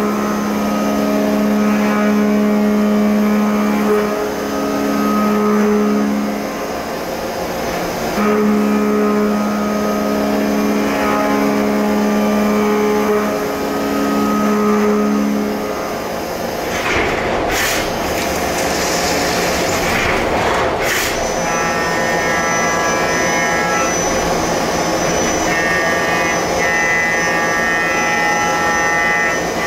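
CNC machining centre milling aluminium with a 16 mm carbide end mill: a loud, steady pitched cutting tone with short gaps between passes. About two-thirds of the way through it stops for a few seconds of brief noises during a tool change. The spindle then runs a carbide chamfering cutter at 10,000 rpm, a higher-pitched steady cutting tone.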